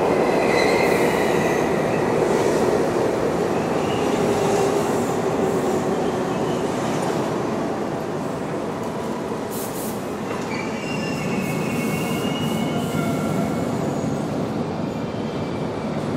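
Subway train running through the station: the steady rumble of the cars on the rails, with high metallic wheel squeals near the start and again in the second half. The rumble eases a little about halfway through.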